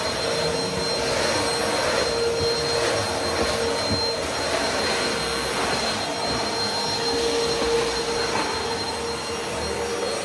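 Vacuum cleaner running steadily, its motor giving an even rushing noise with a constant whine.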